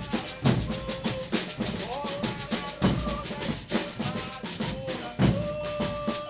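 Brazilian percussion ensemble drumming a dense, fast rhythm of deep drum and sharp snare-like strokes, with a melody of held notes over it.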